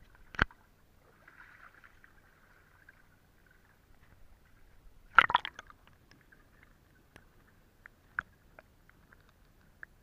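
Water splashing and sharp knocks as a camera is dipped into a shallow pebbly stream: one sharp knock near the start, a loud burst of splashes and clicks about halfway through, then scattered small ticks.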